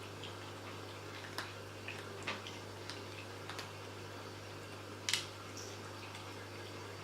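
Kittens eating: scattered small wet clicks and ticks of chewing and licking at a food dish, the loudest about five seconds in, over a steady low hum.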